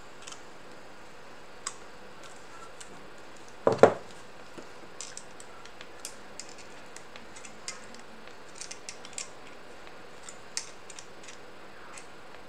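A hand file scraping the cut end of a metal threaded rod held in pliers, in short, irregular scrapes and ticks, to give it a smooth finish. A single loud knock of metal tools comes about four seconds in.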